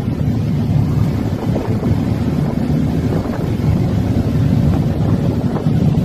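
Navy patrol boat running at sea: a steady low engine rumble mixed with wind buffeting the microphone.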